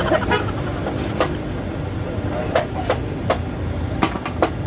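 A steady low hum like a motor vehicle engine running, with about seven sharp knocks spaced unevenly through it.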